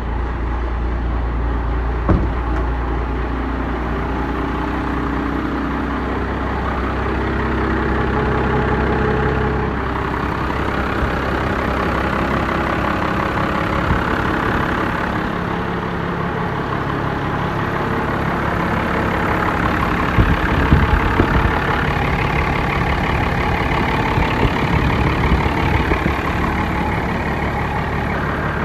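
Cummins 12-valve 5.9-litre inline-six diesel idling just after a hard cold start, running a little rough while air is still being pushed out of its freshly primed fuel system.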